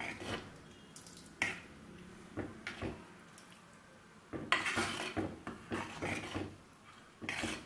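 A wooden-handled ladle stirring thick oat porridge in a clay pot, scraping and knocking against the pot's sides in irregular strokes. The strokes are sparse in the middle and come thicker near the end.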